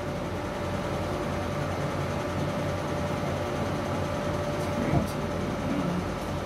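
Steady machine hum with a held tone from the tattoo-removal laser unit running, with one short snap about five seconds in.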